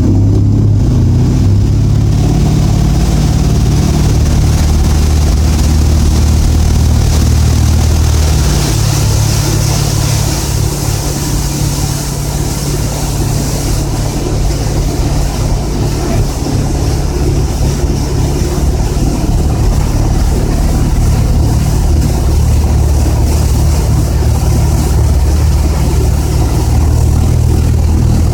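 Ski boat engine running hard under the load of towing two riders, with the steady rush of wind and churning wake. The engine note holds steady, shifting slightly about eight seconds in.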